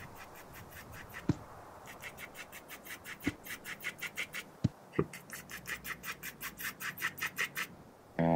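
Cartoon foley for a small bird's feet: runs of quick, light clicking taps and scratches, about six a second, broken by a few deeper knocks. Music comes in loudly right at the end.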